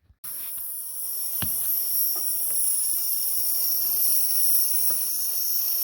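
Compressed air hissing steadily from the leaking pressure regulator of a Campbell Hausfeld portable air compressor, with a few faint knocks.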